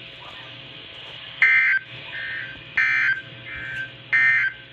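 NOAA Weather Radio EAS/SAME digital data bursts: three short, harsh, buzzy bursts of warbling tones about a second and a half apart, the end-of-message code that closes the tornado warning. Each burst is followed by a fainter repeat, over a low hum.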